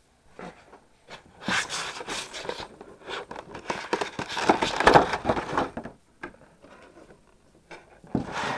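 Clear plastic blister-tray insert being handled and lifted, crackling and scraping for several seconds, then only light taps and rustles near the end.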